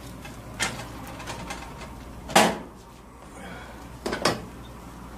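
A spatula knocking and clacking against a cast-iron skillet while a crepe is flipped, then set down: a few sharp clacks, the loudest about two and a half seconds in and two quick ones close together near the end.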